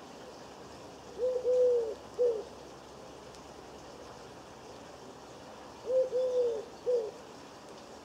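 A dove cooing off-camera, two phrases about four seconds apart, each of three low notes with the middle one held longest.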